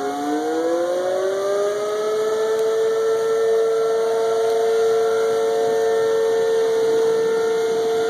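Outdoor tornado warning siren sounding: a chord of several tones that rises in pitch over the first few seconds, then holds steady and loud.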